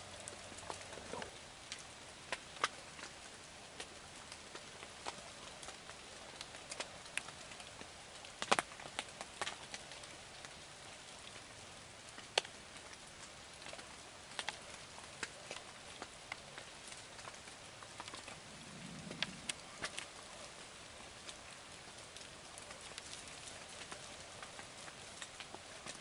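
Light rain pattering on a hunting ground blind: irregular sharp drop ticks over a steady soft hiss, with one louder tap about eight seconds in.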